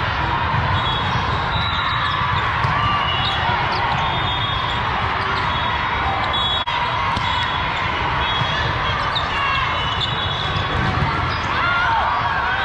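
Steady din of a large volleyball tournament hall: many voices chattering, with volleyballs being struck and scattered short high squeaks from shoes on the sport-court flooring.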